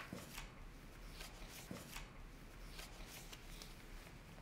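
Faint rustling and sliding of paper bank cheques being handled and laid down, a string of soft, scattered rustles.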